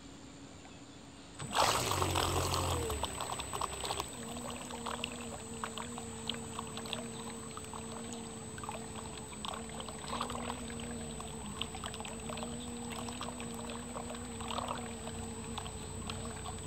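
Remote-control boat under way, heard from on board: water rushing and splashing at the hull over a steady motor hum. The sound is low at first, then picks up sharply about a second and a half in.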